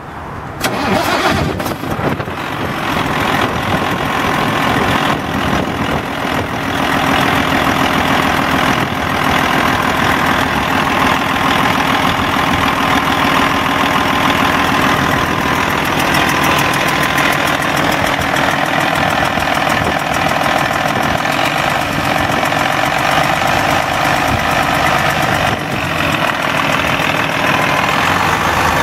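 2003 Detroit Diesel Series 60 12.7-litre inline-six turbo diesel starting up: the sound builds over the first second or two, then the engine runs steadily at idle.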